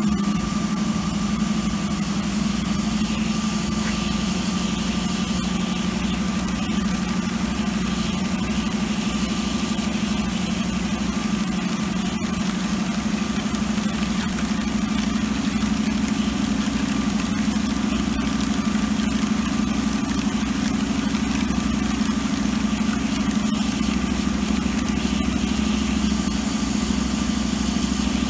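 Steady machinery hum with a thin constant whine above it, from the media filter skid's pump running through the backflush.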